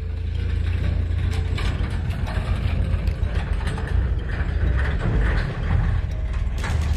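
Fishing reel being cranked to retrieve a lure, a rapid gear ticking, over a steady low rumble.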